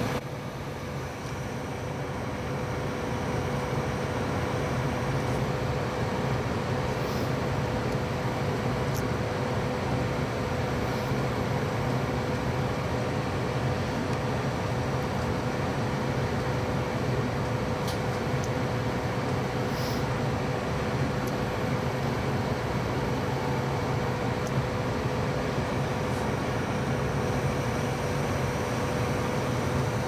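Trane two-stage gas furnace running on low fire: the gas burners are lit, and the variable-speed inducer and the blower fan are running. It is a steady hum with one steady tone, and it grows a little louder over the first few seconds before holding even.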